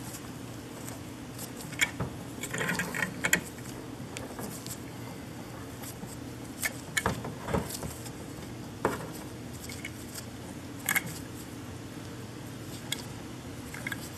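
Scattered metal clicks, clinks and short scrapes from a screw-type brake caliper piston tool being worked by hand on a single-piston brake caliper, forcing the piston back into the bore past its new seal. A low steady hum runs underneath.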